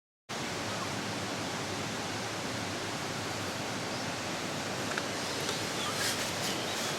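Steady rushing outdoor noise, starting after a brief silence, with a few faint high chirps and ticks near the end.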